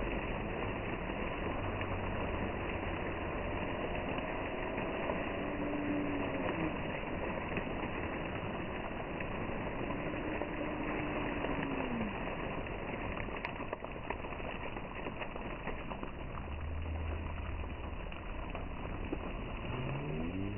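Steady rushing hiss of plaza fountain jets spraying and splashing onto wet paving, with a faint low hum now and then.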